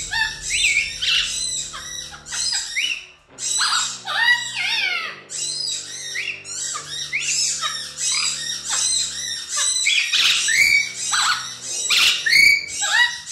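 Amazon parrot screaming in a rapid run of loud, harsh squawks with short gaps between them: startled alarm calls.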